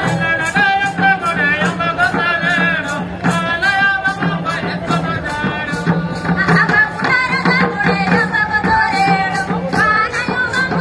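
Adivasi (tribal) folk music: singing with a wavering melody over a steady drum beat.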